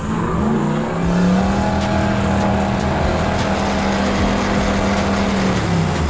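A 4WD's engine revs up in the first second, is held at high revs for several seconds, then drops away near the end. The vehicle is bogged in mud trying to climb a bank, its wheels not getting it moving.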